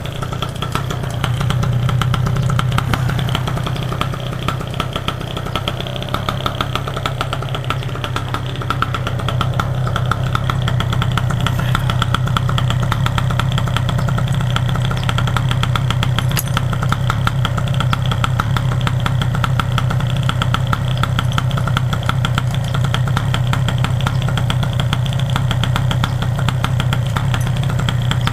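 An engine idling steadily, its firing pulses rapid and even, a little louder from about two seconds in.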